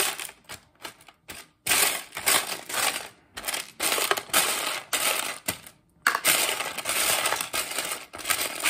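Loose plastic Lego bricks clattering as hands sift and stir through a pile of them in a clear plastic tub, sorting out the odd pieces. The rattling comes in spells with short pauses, one about six seconds in.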